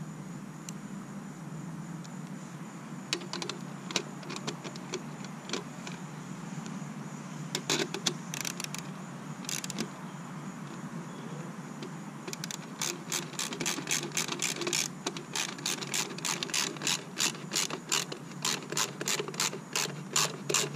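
Socket ratchet clicking as it tightens the clamp-ring bolt of a wet-niche pool light with a 7/16 socket, cinching the ring down to press the seal in. A few scattered clicks come first, then runs of rapid, even clicking through the second half.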